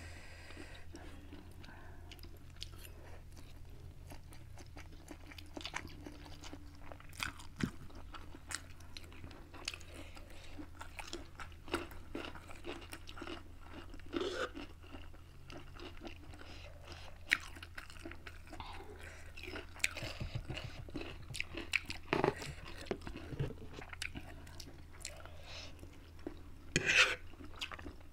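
Close-miked eating: chewing and crunching mouth sounds of spicy noodles and side food, with scattered short clicks of chopsticks and a fork against ceramic bowls, over a steady low hum. A louder bout of eating noise comes near the end.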